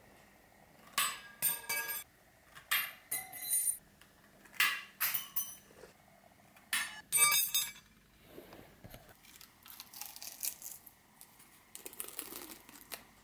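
Tin snips cutting thin brass sheet: a run of sharp metallic snips with a clinking ring, coming in clusters over the first eight seconds. After that, softer crinkling as the cut brass grater sheet is handled.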